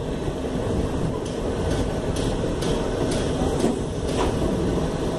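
Indian Railways passenger coaches rolling past as an express pulls into a station, a steady rumble of wheels on rail. From about a second in there are sharp clicks about twice a second as the wheels cross rail joints.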